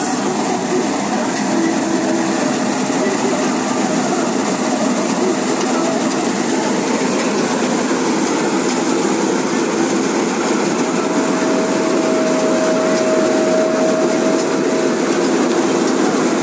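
Combine harvester running steadily while cutting wheat, a continuous loud mechanical drone. A faint steady whine joins in for a few seconds in the second half.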